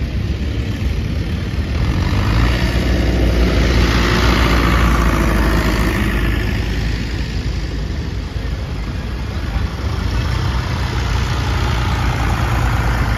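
Vintage tractor engines running as a steady low rumble, with a red Massey Ferguson 35 tractor driving close by near the end.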